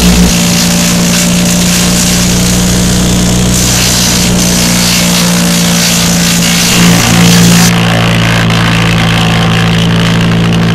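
Vermeer brush chipper's engine running steadily at speed, with a loud rushing hiss over it that stops about three seconds before the end. The sound swells briefly twice, at the start and about seven seconds in.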